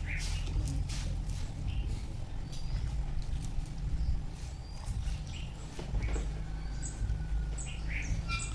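Birds chirping in short calls, more often in the second half, over a steady low rumble, with a few faint clicks near the start.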